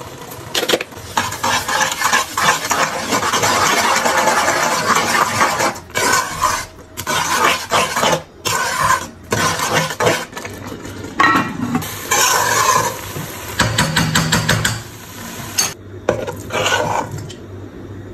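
A metal spoon stirring and scraping vermicelli and sugar around a metal pan while the mixture sizzles. The stirring comes in spells broken by short pauses and dies down near the end.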